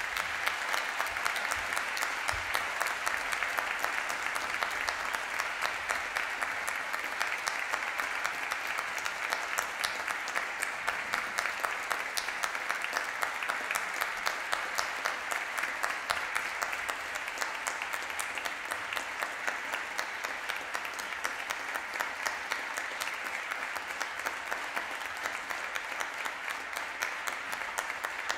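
Audience applauding steadily, a dense mass of many people clapping. Near the end the clapping thins a little and single claps stand out more.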